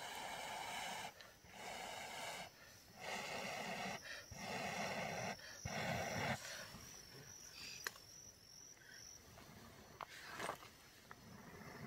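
A person blowing hard into a smouldering tinder bundle to bring the ember to flame: five long puffs of breath, one after another. After the puffs it goes quieter, with a few light ticks as the bundle is worked in among the sticks.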